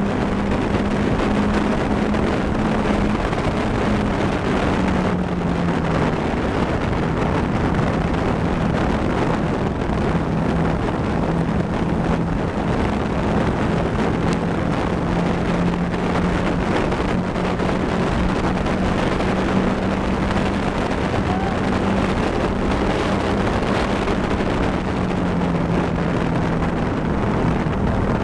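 Caterham Seven race car's four-cylinder engine running hard at high revs, with heavy wind rush over the open cockpit, heard from inside the car. The engine note drops slightly about five seconds in, then holds steady.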